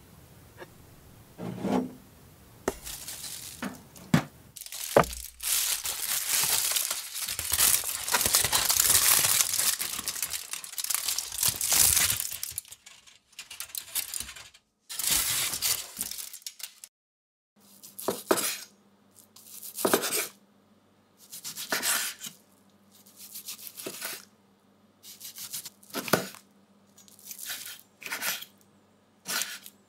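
Kitchen food-prep sounds: a few knocks, a long stretch of crackling noise, and a short crinkle of aluminium foil being opened around a cooked steak. Then a knife slicing the cooked steak on a bamboo cutting board, about one cut every two seconds, over a steady low hum.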